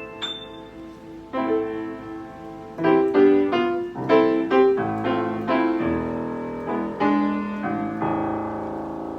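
Steinway piano sound playing a passage of chords: a single high note, then a quicker series of chords, ending on held chords that ring and fade away.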